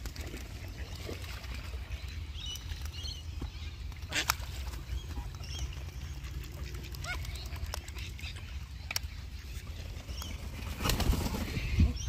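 Ducks quacking among other birds' short calls, over a steady low wind rumble on the microphone. A few sharp clicks, and a louder rustling noise shortly before the end.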